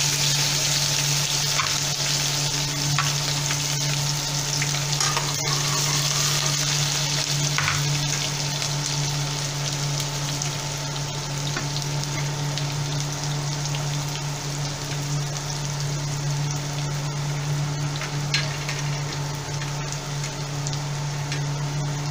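Chopped onion frying in hot mustard oil in a kadai: a steady sizzle that is strongest at the start, just after the onion goes in, and eases off gradually. A constant low hum runs underneath, with a few light clicks.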